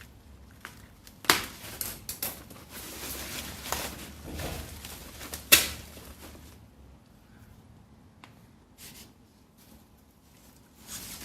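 A parcel being opened by hand: rustling packaging with a few sharp snaps and clicks, the loudest about five and a half seconds in, then only faint handling.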